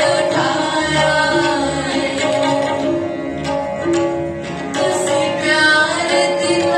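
Sikh kirtan (devotional hymn singing): young female voices singing to held harmonium chords and tabla strokes.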